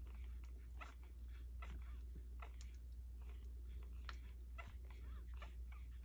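Twelve-day-old puppies nursing, with faint, irregular little squeaks and suckling smacks over a steady low hum.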